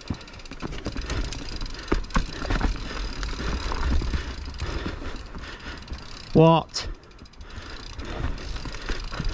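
Mountain bike riding down rough technical singletrack: tyres and frame clattering and knocking over roots and rocks, with a low rumble throughout. About six seconds in, a rider gives one short falling groan.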